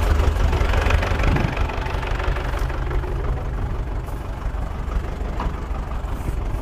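Farm tractor engine idling steadily, heard as a deep low hum that eases slightly about a second and a half in, while the tractor waits to pull off with the baler.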